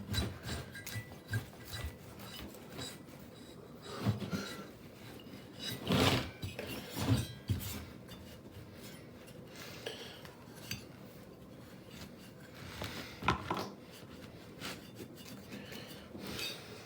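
Microfiber cloth rubbing and wiping over a metal cylinder head in irregular strokes, with a few knocks of the part being handled.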